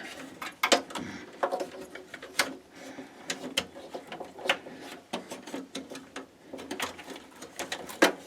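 Power supply cables being handled and pushed through a PC case: irregular plastic and metal clicks and knocks, about one or two a second, with cable rustling between them.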